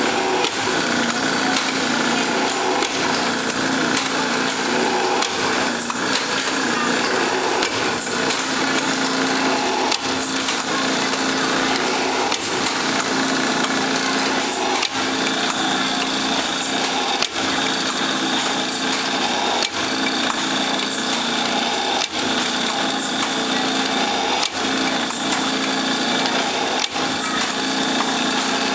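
Automatic PVC pipe drilling machine running: the drill bit cuts through the plastic pipe wall in a steady grinding run, with a short break about every two and a half seconds as each hole is finished. A higher whine joins about halfway through.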